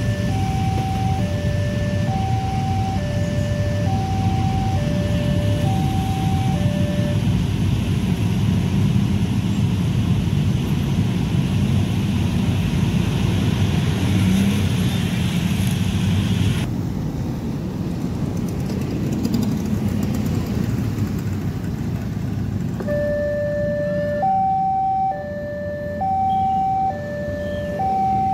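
Railway level-crossing warning alarm sounding two electronic tones in alternation, about one tone a second, over the running engines of many waiting motorcycles and cars. The alarm stops about seven seconds in and starts again, louder, near the end.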